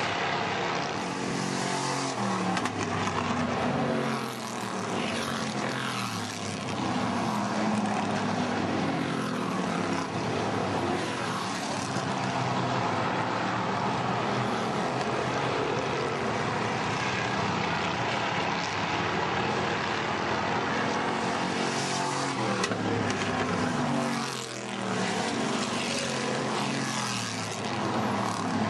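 A pack of hobby stock cars racing on a paved oval, several engines running hard at once. Their pitch rises and falls over and over as the cars pass and go through the turns.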